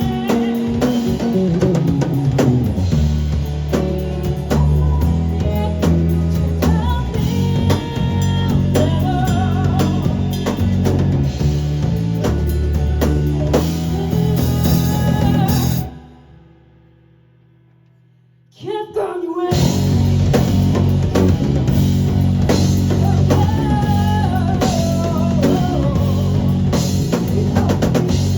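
Rock band playing live: drum kit, bass and electric guitar at full volume. About two-thirds of the way through, the whole band stops dead for nearly three seconds, then crashes back in together.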